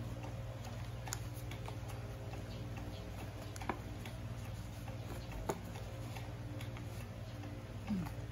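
Hands folding and creasing a sheet of origami paper on a felt-covered table: soft paper handling with scattered faint ticks and two sharp ticks as folds are pressed, over a steady low hum. A short falling tone sounds near the end.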